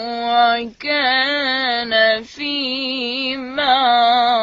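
A child's voice chanting Quran recitation in melodic tajweed style, drawing out long ornamented vowels with a wavering pitch. There are three long phrases, with short breath breaks about a second in and again a little past two seconds.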